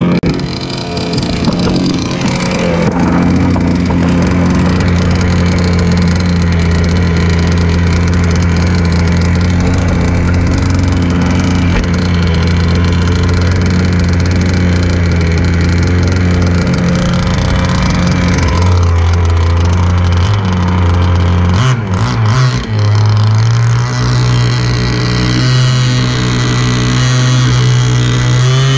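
Warehouse Hobbies Enforcer RC speed boat's engine running steadily at low throttle, heard close up on board. About three quarters of the way through it stutters briefly, then settles at a higher steady pitch.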